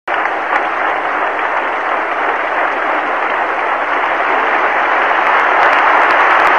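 Arena audience applauding steadily, a dense clapping that swells slightly near the end as the skaters take the ice.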